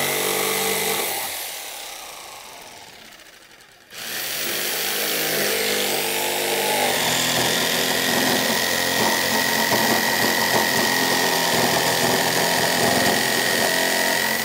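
Makita 4324 corded jigsaw cutting a cedar deck board, its blade sawing through the wood. It dies away about a second in, starts again abruptly about four seconds in, and then runs steadily.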